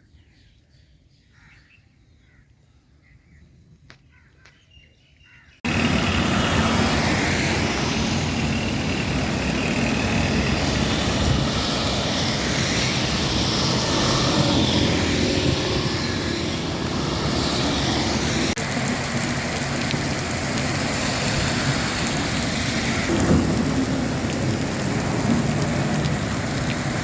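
Heavy rain pouring steadily, a dense even hiss that starts abruptly about six seconds in after a few seconds of faint background sound.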